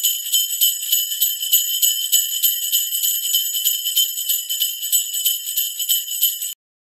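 Sleigh bells jingling in a steady shaken rhythm, about four shakes a second, cutting off suddenly near the end.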